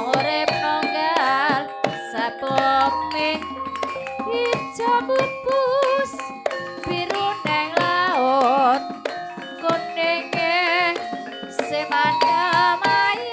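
Javanese Banyumasan gamelan music: hand-drum strokes and ringing struck metallophone notes, with a wavering, vibrato-laden melody line over them.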